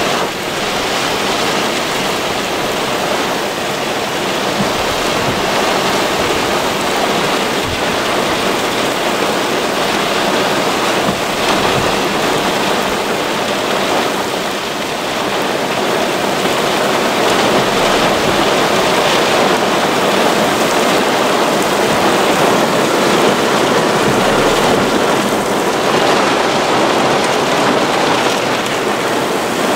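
Heavy rain pouring down on and around a car, a steady loud hiss that eases a little about halfway through and then builds again.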